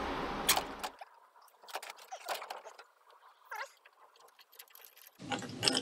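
Faint, scattered clicks and clinks of metal parts being handled on a junked car's dashboard. They follow a second of steady background hum that stops abruptly.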